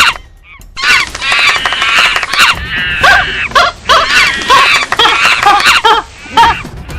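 An animal's shrill calls in quick succession: short squawks and falling squeals, with a brief pause just after the start.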